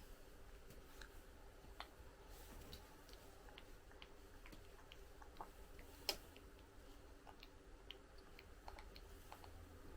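Near silence with faint, scattered small clicks and smacks from a baby's mouth while feeding, and one sharper click about six seconds in.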